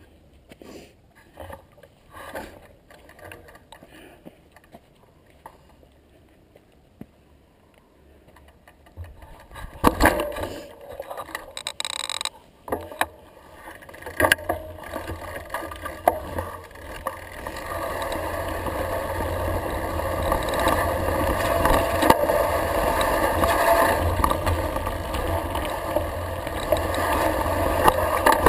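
Mountain bike ridden downhill on a rough dirt trail, heard from a bike-mounted action camera: scattered rattles and clicks at first, then sharp knocks from about ten seconds in. In the second half a steady rushing noise builds up and holds.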